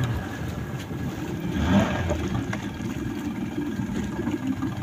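Outboard motor of a small wooden fishing boat running at idle, a steady low rumble, with a brief louder noise about two seconds in.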